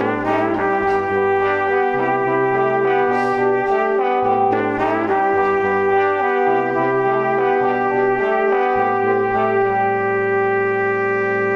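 Instrumental background music: sustained brass-like chords over a bass line that changes note every second or two.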